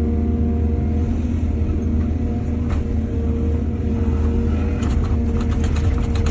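Heavy diesel engine of an excavator running steadily with a low rumble. Near the end comes a run of sharp clattering knocks.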